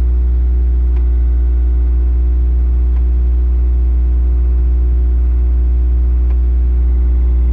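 Bobcat T66 skid steer's diesel engine running steadily at idle, with a few faint clicks.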